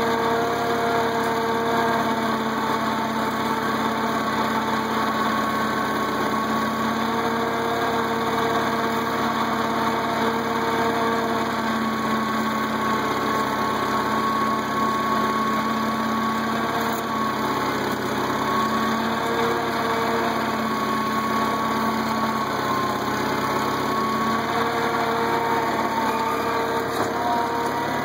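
International Cub tractor's four-cylinder engine running steadily at low speed while the tractor pulls its cultivator shanks through a potato row.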